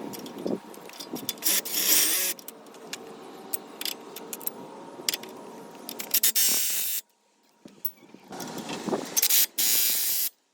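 Metal tools and parts clinking, knocking and scraping during CV axle work on a car, with several short, louder bursts of hissing noise. The sound breaks off suddenly twice, as if cut.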